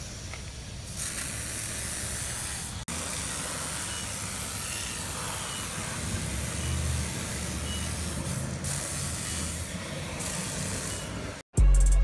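Aerosol tire-shine spray hissing in a long, steady spray onto a tire's sidewall, with a brief break about three seconds in. Music with a heavy bass cuts in just before the end.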